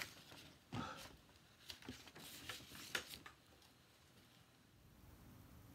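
Faint scattered clicks and brief rustles of small handling noise over about three seconds, then near silence with only room tone.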